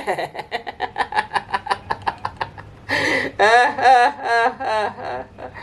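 A person laughing softly in quick breathy pulses, about five or six a second, with a short hiss and a brief voiced stretch about three seconds in, then more breathy pulses.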